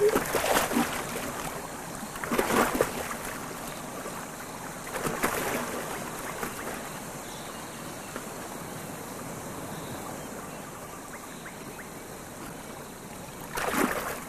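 Clawless otter splashing through shallow river water, in about four separate bursts, over a steady rush of running water.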